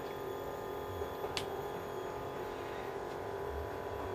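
Steady electrical hum with several overtones, with a faint click about a second and a half in.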